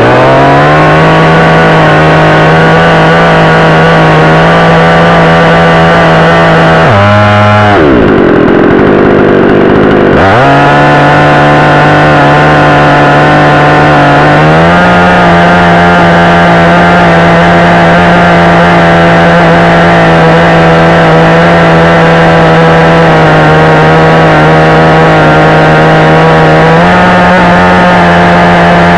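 62cc gas chainsaw held at full throttle while cutting a branch, loud and steady. About seven seconds in it drops back to idle for about three seconds, then is revved up again and held high.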